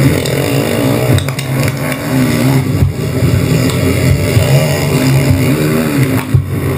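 Sport quad (ATV) engines racing, revving up and down steadily as several quads run close together.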